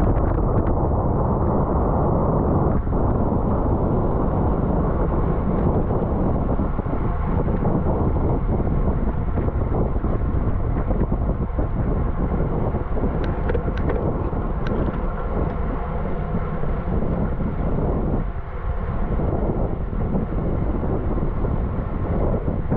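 Steady wind rush over the microphone of a camera on a racing bicycle riding at speed, with road noise underneath. A few faint ticks come about two-thirds of the way through.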